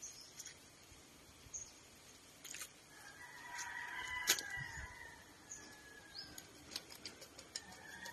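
A rooster crowing once, one long call of about two and a half seconds starting about three seconds in. Short high chirps of small birds and a few sharp clicks sound around it.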